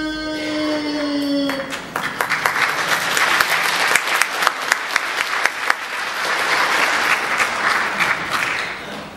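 A held final note ends about a second and a half in. Then an audience applauds with dense clapping that dies away near the end.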